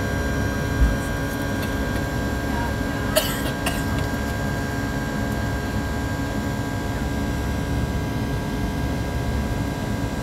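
Boeing 737-700's CFM56 jet engines at climb power, heard inside the cabin as a steady rush of noise with several steady high tones. A brief low thump comes about a second in, and two short sharp clicks a few seconds in.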